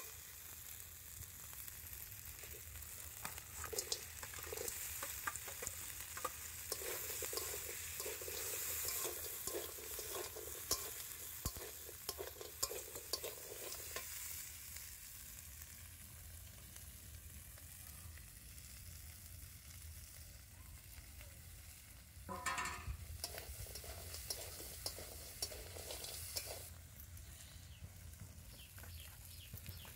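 Spiced paste and crab pieces sizzling in oil in a large metal kadai, with a metal spatula stirring and scraping against the pan.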